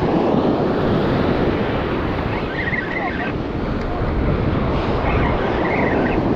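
Ocean surf washing against a rock ledge, with wind buffeting the microphone.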